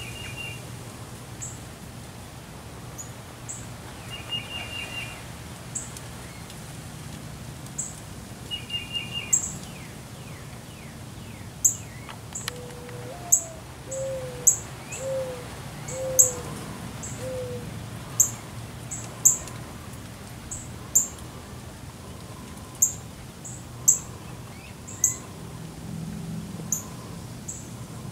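Wild birds calling in a garden. There are many short, sharp high chips, a short buzzy trill repeated three times early on, and a run of five low down-slurred notes midway. A steady low background hum runs underneath.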